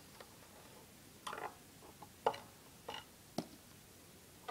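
A few short, separate clicks and squishes, about four in a few seconds: oily, icy sludge being scooped and scraped out of a small engine's open crankcase.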